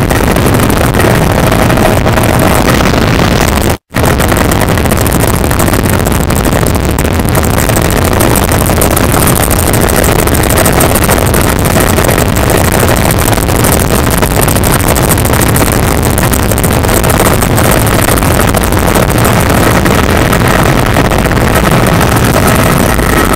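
Helicopter cabin noise in flight: the engine and rotor running steadily, loud and rushing. The sound cuts out for an instant about four seconds in.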